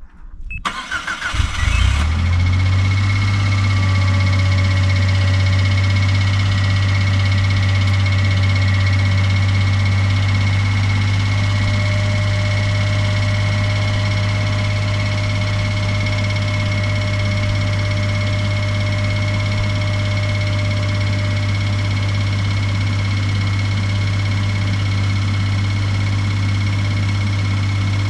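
Suzuki Every Wagon's R06A three-cylinder engine cranked by the starter, catching about two seconds in, then idling steadily. It carries the abnormal engine noise of an engine fault at 55,000 km.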